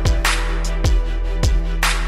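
Background music with a steady beat: deep kick-drum hits about three times, two sharp crashing hits, and held bass and chord notes underneath.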